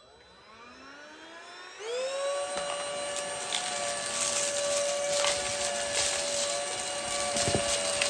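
Prettycare W200 cordless stick vacuum starting on its high setting: a whine that rises as the motor spins up, settling about two seconds in into a steady high-pitched hum. From about three seconds in, small debris is drawn in off thick carpet with scattered clicks and rattles.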